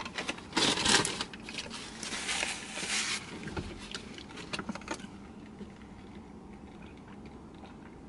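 Rustling and crinkling of food packaging and a plastic juice bottle being handled and opened, in irregular bursts that die away about five seconds in.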